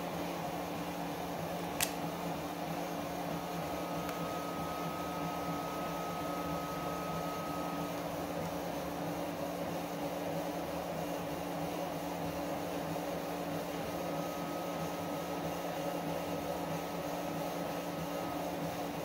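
A steady mechanical hum with a few constant tones, a single sharp click about two seconds in, and a faint high whine that comes and goes twice.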